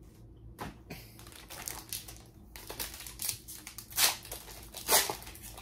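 Foil wrapper of a Pokémon card booster pack crinkling in the hands as it is torn open, with two louder rips about four and five seconds in.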